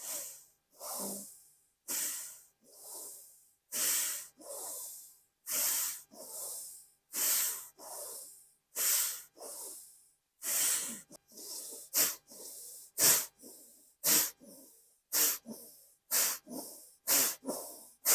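Kapalbhati pranayama breathing: forceful exhalations through the nose, each after a softer in-breath. There is about one every second and a half at first, and they come quicker and sharper in the last few seconds.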